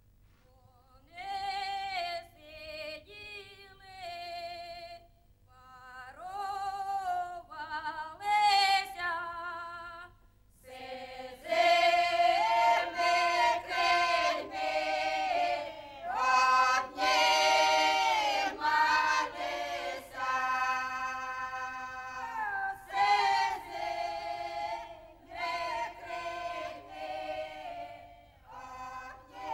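Women's choir singing a slow song. A lone voice sings the first short phrases, and the full choir comes in about ten seconds in.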